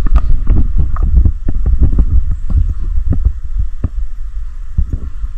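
Loud low rumble of wind buffeting an action camera's microphone, with many irregular knocks and taps several times a second.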